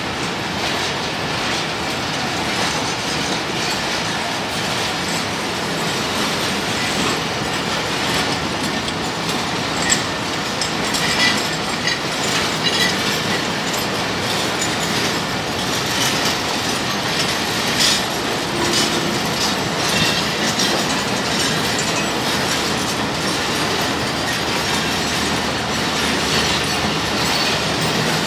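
Pakistan Railways passenger coaches rolling past close by: a steady rumble with the wheels clattering over the rail joints and a few short wheel squeals midway.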